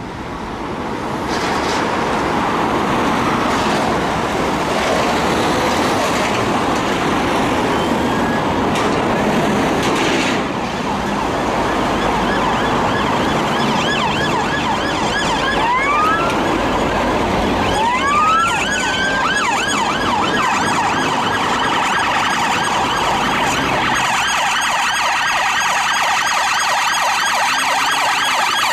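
Police vehicle sirens in a convoy with road traffic noise. At first there is mostly the noise of passing traffic. Around the middle a siren wail rises twice, and in the last third several sirens yelp rapidly together.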